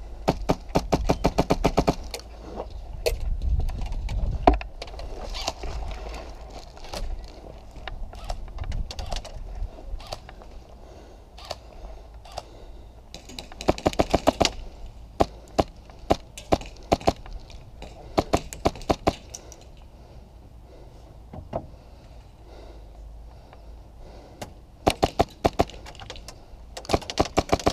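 Airsoft rifle firing rapid full-auto bursts: a burst of about two seconds at the start, more around the middle and two near the end. Scattered sharp cracks of BBs striking plywood and pallet walls between the bursts.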